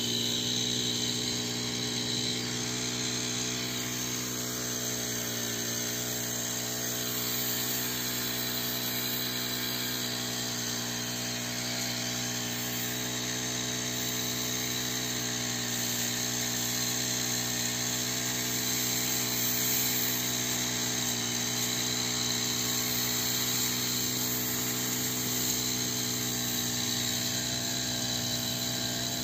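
Power sprayer's pump motor running at a steady speed, driving pesticide spray through the hose line to the spray lance.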